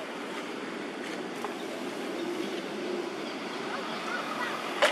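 Steady outdoor background noise, like wind on the microphone, with a few faint short high squeaks near the end and a single sharp click just before the end.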